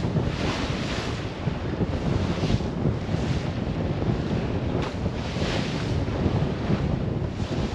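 Wind buffeting the microphone of a sailboat under sail, over the hiss of waves rushing along the hull, which swells every second or two as the boat meets the chop.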